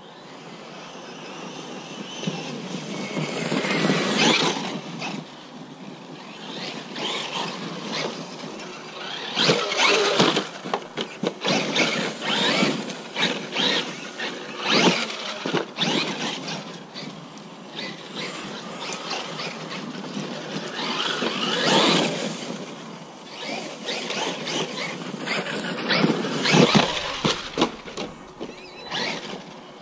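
Traxxas Maxx RC monster truck driving on dirt and dry leaves. Its brushless electric motor whines up and down in several bursts of throttle, and the tyres churn the ground.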